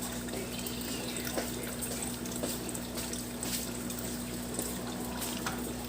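Steady trickling water with a low steady hum beneath it and a few faint clicks.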